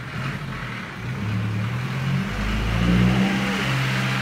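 A motor vehicle's engine running and revving, growing louder from about two seconds in.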